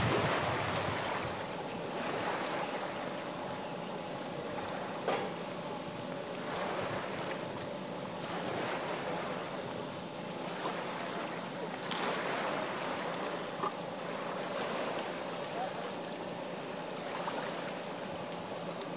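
Steady outdoor noise of wind and water, with a faint steady hum and a few light clicks.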